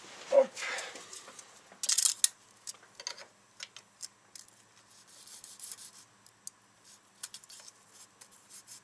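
Light metallic clicks, taps and scrapes of a steel feeler gauge set being worked in the valve gap between rocker arm and valve stem, with a brief louder sound near the start. The gap is too small: the feeler blade is pinched.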